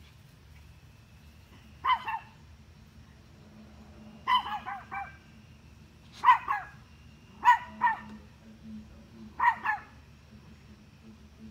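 Dog barking at a deer in five short bouts of one to four quick barks each, about every two seconds.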